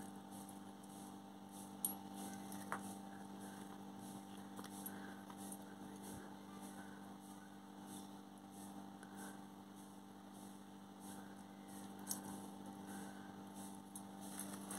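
Faint steady mains hum, with a few soft clicks.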